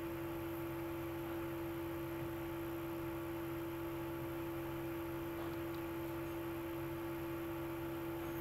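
Steady electrical hum with one constant mid-pitched tone over faint hiss.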